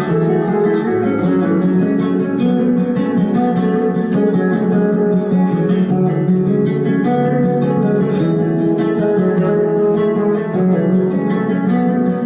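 Acoustic guitar music in a flamenco style, fast plucked and strummed notes with no singing.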